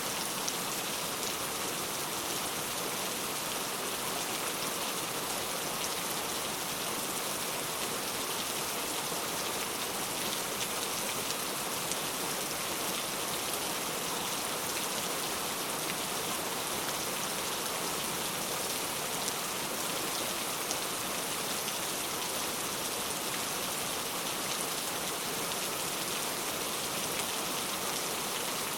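Heavy rain falling steadily: an even, unbroken hiss of many fine drops, strongest in the high range, with no rise or fall.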